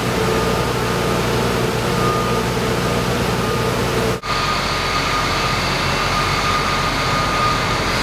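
Steady machinery hum with a held whine, from heavy equipment running in a large hall. About four seconds in it cuts abruptly to a different steady hum with a higher whine.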